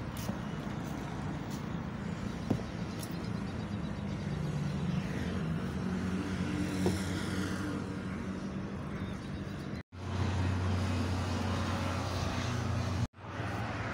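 Road traffic: motor vehicles running past with a steady engine hum, one swelling and fading as it passes about halfway through. The sound cuts out briefly twice near the end.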